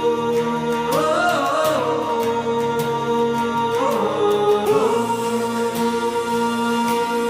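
Background music: a sung melody with long held notes over a steady drone and a light regular beat.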